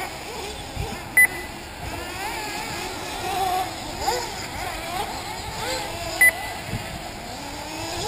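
Several 1/8-scale nitro RC buggies' small two-stroke glow engines whining and revving up and down as they race around the track. Two short, loud electronic beeps cut through, about five seconds apart.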